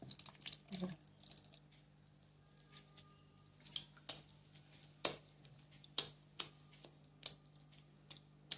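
Wet, freshly churned butter squished by hand and lifted out of a steel mixer jar, with drips and small splats of water as butter balls are squeezed and dropped into a plate of ice water. The sound is a scatter of short, sharp wet clicks and splats with quiet between them.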